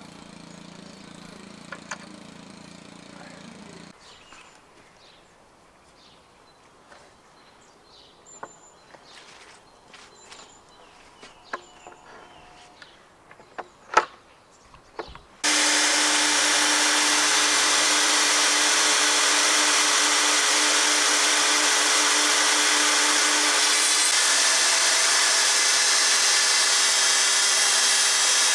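Festool TS 55 plunge-cut circular saw: a few quiet clicks and knocks, then about halfway through the saw starts and runs loud and steady as its blade cuts through a painted wooden fence board.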